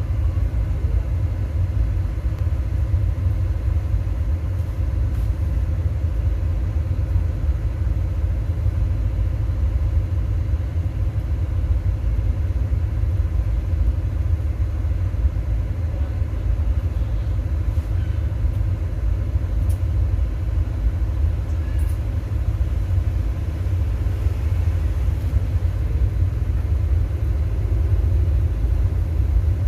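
A sound system's subwoofers putting out a loud, steady, deep bass rumble with little above the lowest bass, a continuous low test signal played while the system is being tuned with an SPL meter.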